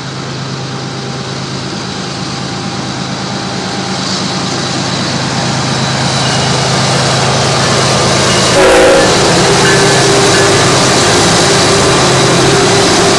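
Diesel locomotives of a CSX freight train working hard up a grade. Their engine drone grows steadily louder as they approach, peaks as the lead units pass about two-thirds of the way through, then holds as the trailing units go by.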